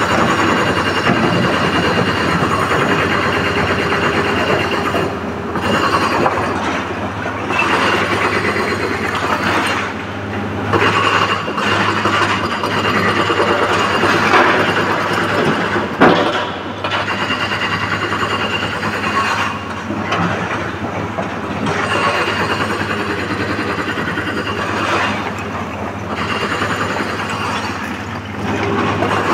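Tata Hitachi crawler excavator working in broken stone: its diesel engine runs steadily under load while the bucket digs and scrapes through the rock pile and dumps it into a dump truck's steel bed, with stone clattering throughout. One sharp knock sounds about halfway through.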